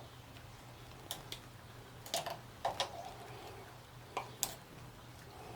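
A handful of light, separate clicks and ticks from hand tools and safety wire being handled. There are two pairs a little after one second and around two seconds, and two more near four seconds, over a steady low hum.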